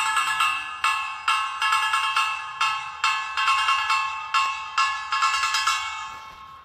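A metal bell struck over and over, a little more than twice a second, each strike ringing on into the next, fading away near the end.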